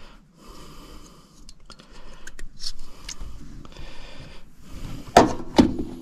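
Wires with spade connectors being handled and pushed onto the terminals of a new HVAC contactor: a few small clicks, then two sharp snaps about half a second apart near the end. Close, heavy breathing runs underneath.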